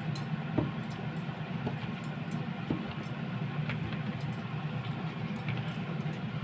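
A steady low hum with three faint soft knocks about a second apart, from a utensil poking holes down through the layered biryani rice in the pot.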